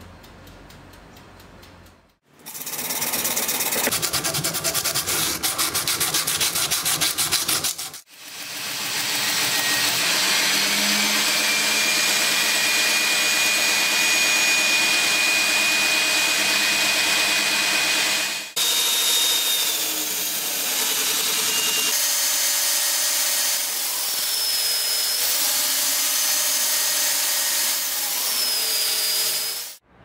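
Power tools working a high-carbon steel knife blade in a few cut-together stretches. First comes a run of rapid rasping strokes, then a long steady motor sound with the tool on the metal. Near the end the motor's pitch wavers up and down.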